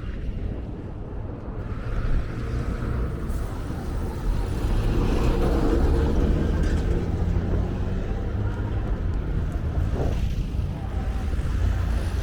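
Road traffic: a steady low rumble of passing vehicles, getting a little louder about four seconds in.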